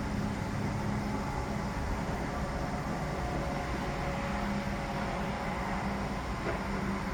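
Construction-site machinery running: a steady low mechanical drone with a humming tone that fades out about a second in and comes back about four seconds in.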